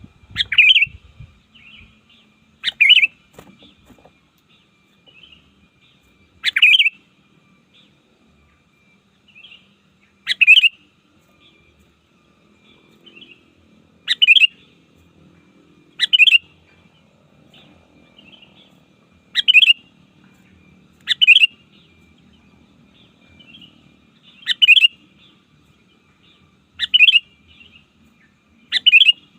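Sooty-headed bulbul (kutilang) giving short, loud calls repeated every two to four seconds, with softer chirps between them: calls used to lure and challenge rival bulbuls.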